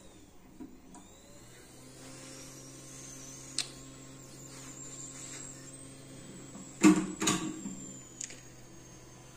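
A small motor runs with a steady hum and a high whine, starting about a second in and stopping near the end. A sharp click about three and a half seconds in and a loud double knock about seven seconds in, the loudest sound, are a metal tool working at the board.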